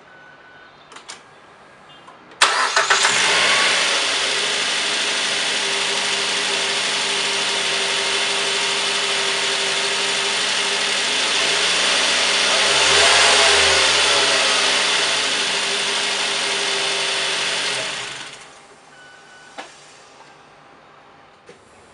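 A 2013 Mazda 3's four-cylinder petrol engine starting about two seconds in, then idling steadily, with one brief rise and fall in revs around the middle. It is switched off a few seconds before the end.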